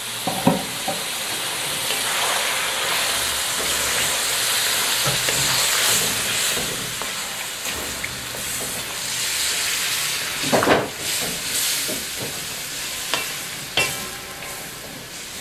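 Chicken, chopped tomatoes and oil sizzling in a karahi while a wooden spoon stirs and scrapes through them, with a few louder scrapes and knocks of the spoon on the pan toward the end.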